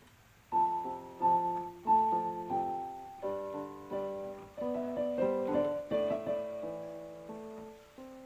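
Background piano music: a gentle melody of struck notes over chords, starting about half a second in and thinning out near the end.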